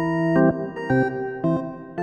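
Instrumental background music: a keyboard melody of short notes, a new note every third to half second.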